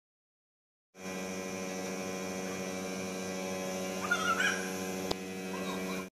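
Steady electrical hum with many overtones, starting about a second in. A few brief, rising high squeaks come about three seconds later, and a single sharp click follows.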